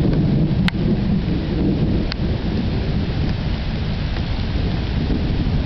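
Stormy outdoor weather noise on a camcorder microphone: a steady low rumble, with two sharp ticks about one and two seconds in.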